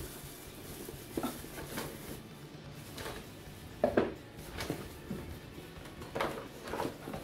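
Unpacking a cardboard box: flaps and packing material rustling and handled, with a few light knocks. The loudest, about four seconds in, is a plastic piece set down on the stone countertop.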